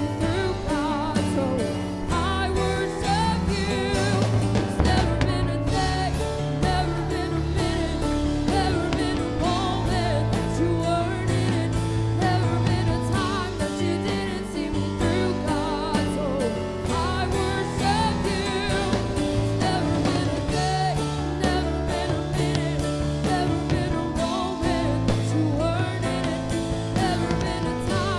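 Live church worship music: a band with keyboard, bass and drums playing steadily under singing voices.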